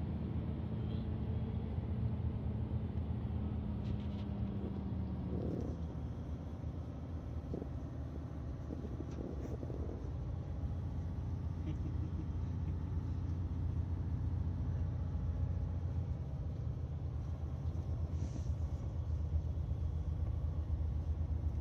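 Heavy truck's engine and road noise heard from inside the cab while driving: a steady low rumble. A faint tone sinks slightly and fades about five seconds in.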